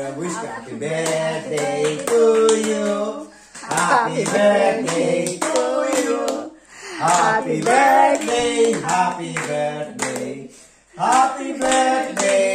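A group of people singing a birthday song together in four sung phrases, clapping along in time.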